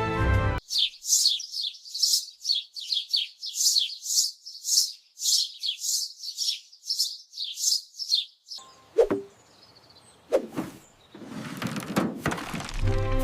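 A small bird chirping rapidly, a quick run of short, high, falling tweets lasting about eight seconds. Then come two sharp knocks and a brief noisy whoosh.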